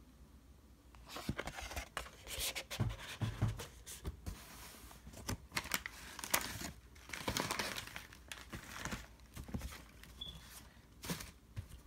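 Paper and packaging rustling and crinkling as items are handled, in irregular bursts with a few short sharp clicks.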